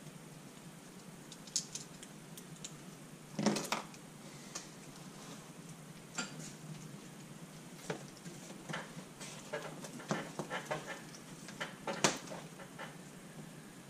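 Scattered small metallic clicks and clinks of parts and tools being handled on a motorcycle engine. There is a sharper knock about three and a half seconds in, a run of light clicks later on, and a sharp click near the end.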